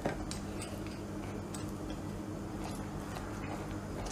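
A sharp click just after the start, then scattered light ticks and taps over a steady low hum.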